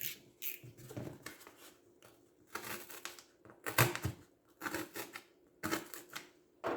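Pen scratching on paper in short strokes, several a second, as fastener locations are sketched and noted.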